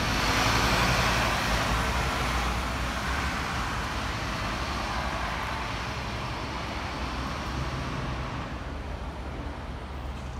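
Scania K280UB city bus pulling away and driving off, its engine and road noise slowly fading as it moves into the distance, with street traffic around it.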